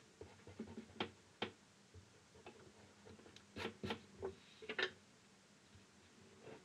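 Faint short scrapes and taps of a rubber eraser and hand on drawing paper as pencil lines are erased.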